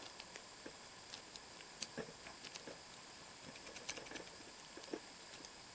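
Faint, irregular small clicks of a rake pick being worked in a 30 mm brass ALA five-pin padlock, the pins clicking as they are raked under tension.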